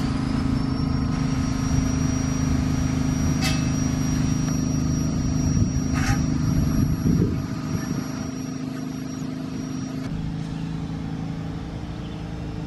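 Passenger train approaching slowly, a steady low engine hum with a faint high whine and two short sharp clicks. About ten seconds in it gives way abruptly to a lower, different background hum.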